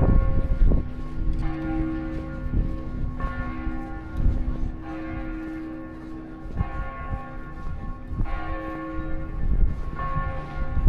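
Church bell tolling, struck about every one and a half to two seconds, each stroke ringing on into the next.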